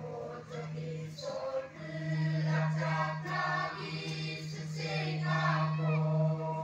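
Church choir of young women and men singing a gospel hymn together, louder from about two seconds in, over a steady low hum.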